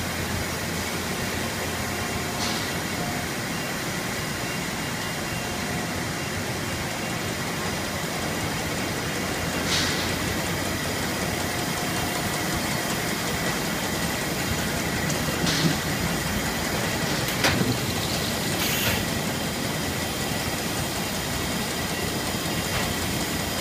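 Powered roller conveyor running steadily, a constant mechanical noise with a faint high whine, with a few short knocks and clatters as cardboard cartons ride over the rollers.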